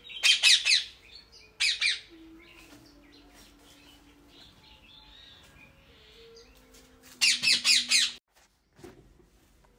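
Pet Indian green parrot giving harsh, rapid squawks: a quick run of them at the start, one more about two seconds in, and another quick run near the end, with faint background between.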